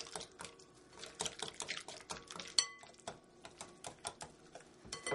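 Whisk beating flour into an egg-and-lemon batter in a glass bowl: fast, continuous clicking and tapping of the whisk against the glass. Partway through, the bowl rings briefly.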